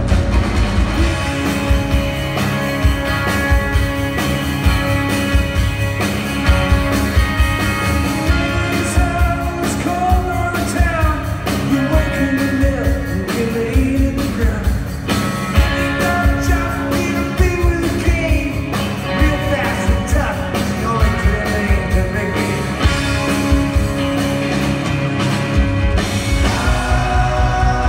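A rock band playing live: singing over electric guitars, bass and drums, with a steady beat.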